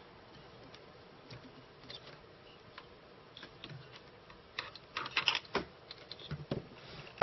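Scattered light clicks and taps from hands working inside a reel-to-reel tape deck's mechanism while threading a new rubber capstan belt, with a quick cluster of clicks about five seconds in and one sharp click near the end.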